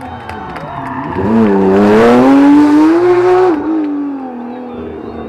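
A rally car passing at speed under hard throttle. The engine note swells about a second in and climbs in pitch through the loudest stretch, then drops away and fades as the car goes by.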